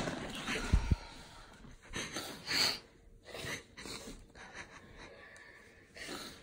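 Irregular noisy breaths and sniffs, one every second or so, with a short low thump just under a second in.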